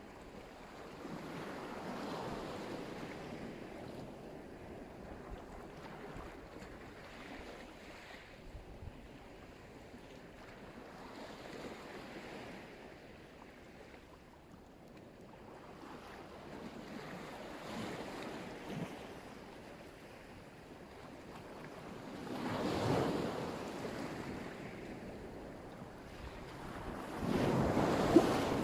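Black Sea waves breaking on the shore, each surge swelling and washing back, the loudest about 23 seconds in and near the end, with wind buffeting the microphone.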